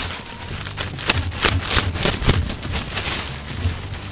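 Clear plastic packaging bag crinkling and rustling as it is handled and pulled open, in a dense run of quick crackles that is busiest in the middle.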